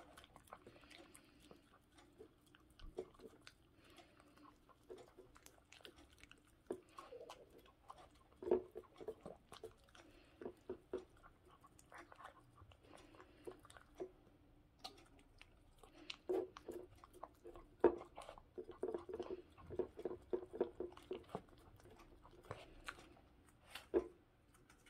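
A poodle eating dry kibble from a bowl: irregular chewing and crunching, busiest about a third of the way in and again past the middle.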